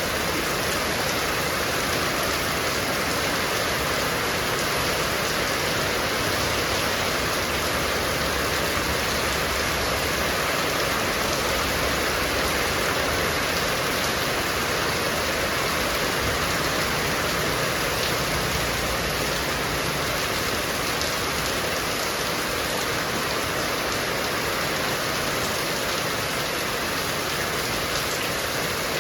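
Heavy rain falling steadily: a dense, even hiss with scattered drop hits.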